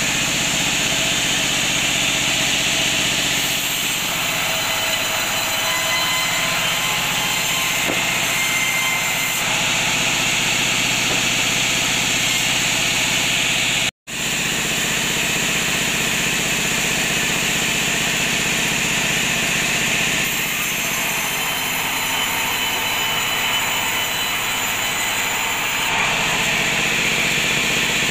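Sawmill band saw running and ripping a teak log slab into boards, a steady loud mechanical din that cuts out for an instant about halfway.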